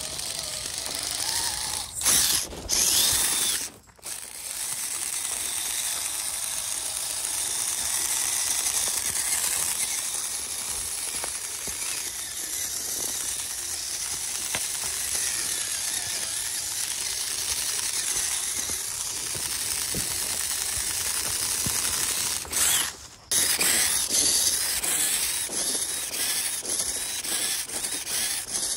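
Radio-controlled scale truck driving, its electric motor and geared drivetrain whirring and clicking steadily, broken by two short gaps about four seconds in and near the twenty-third second.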